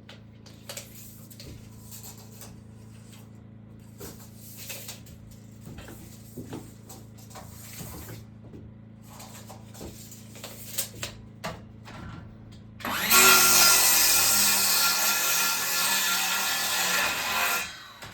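Scraping and knocking of wood being handled over a steady low hum, then about thirteen seconds in a power tool cuts into wood for about five seconds, much louder than everything else, and stops abruptly.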